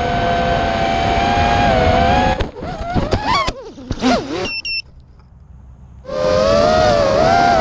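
FPV racing quadcopter's brushless motors and propellers whining, the pitch shifting with throttle. About two and a half seconds in it crashes, with knocks and the motors sputtering and sliding in pitch, then two short high beeps and a quieter pause before the motors spin back up.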